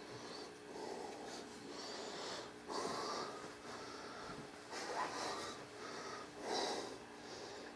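A man breathing close to the microphone: soft nasal breaths and snorts, with three louder exhales, at about three, five and six and a half seconds in.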